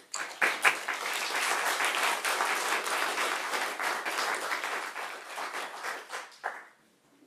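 Audience applause: many hands clapping together, thinning out near the end with a last stray clap.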